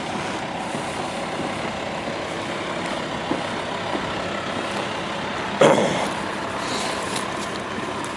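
Steady engine noise, with one short, loud burst about five and a half seconds in.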